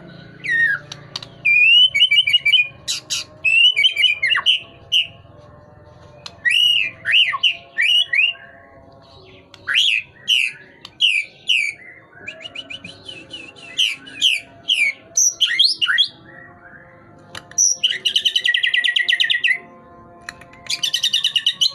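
A white-rumped shama (murai batu) in full, continuous song. Loud, varied phrases of clear rising and falling whistles and quick chattering runs, broken twice near the end by a harsh, buzzy rattle.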